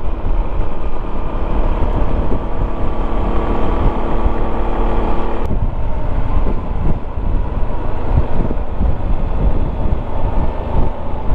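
Riding noise from a Yamaha XMAX 300 scooter picked up by a helmet-mounted microphone: heavy wind rumble over the single-cylinder engine's drone. About five and a half seconds in there is a click and the engine note drops away, leaving mostly rough wind buffeting.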